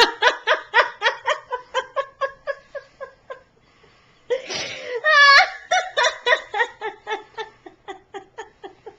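A woman laughing hard in long runs of quick, pitched pulses, about four a second. About four and a half seconds in there is a louder burst that rises in pitch, and then the pulses fade toward the end.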